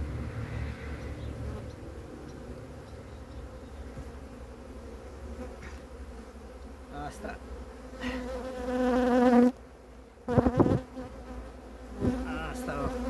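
Honeybees buzzing around an open hive, with one bee buzzing loud and close for about a second and a half before it cuts off suddenly. Then a few sharp knocks as a wooden frame is prised loose and lifted from the hive box.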